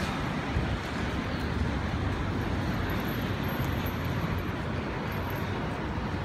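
Steady outdoor street noise: a constant rumble of road traffic.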